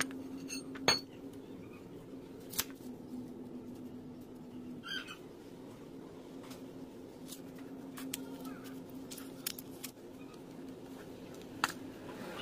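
Scattered sharp clicks and taps from hands handling a steel pipe and a tape measure, over a steady low hum. The loudest click comes about a second in.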